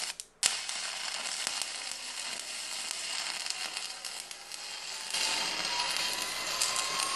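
Stick-welding arc from a Rockmount Polaris electrode crackling steadily while running a T-joint. Just after the start the arc cuts out for a moment and re-strikes at once, then runs on. A faint, slowly rising tone joins it about five seconds in.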